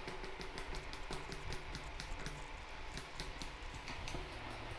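Screwdriver driving screws into the plastic housing of a Ken electric drill, giving a quick, uneven run of small clicks.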